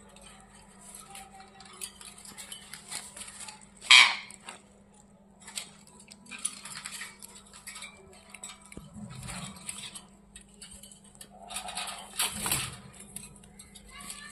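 Pet ringneck parakeets moving about in their cage: light metallic clinks and rattles, with two louder sharp sounds about 4 and 12 seconds in.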